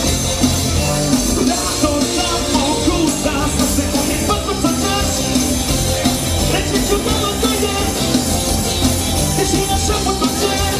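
Rock band playing live, with electric guitars, bass and drums.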